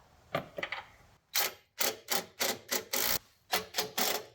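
Ratchet wrench clicking in short bursts, about three a second, as it drives a self-tapping screw into a hole in the frame, with a few faint clicks just before.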